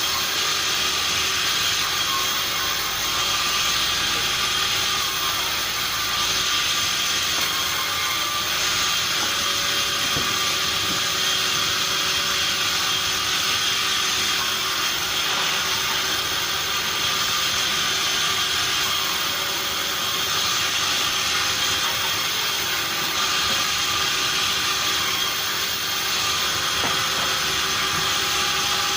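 Sawmill machinery running steadily: a constant loud mechanical noise, heaviest in the upper range, with a few steady whining tones through it.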